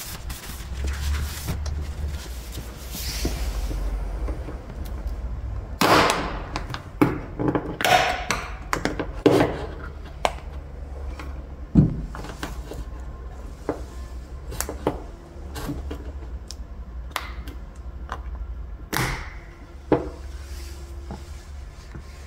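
Hand work on a car's steel body panel: rubbing, scattered clicks and knocks as the paint is wiped and a glue tab for paintless dent repair is set in place. A steady low hum runs underneath.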